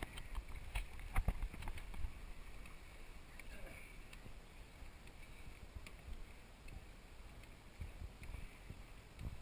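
Water rushing and splashing along a scaffolding-and-timber water slide during a ride down it, heard close to the sliding surface, with scattered knocks and bumps, several in the first two seconds.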